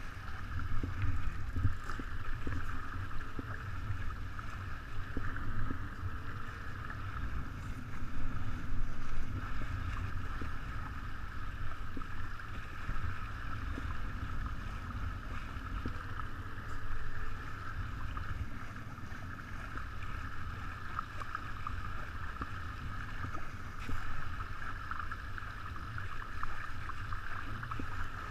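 Wind buffeting the on-board camera's microphone and water rushing along the hull of a 49er skiff sailing at about 7 to 9 knots: a steady, gusty rumble with a constant hiss over it.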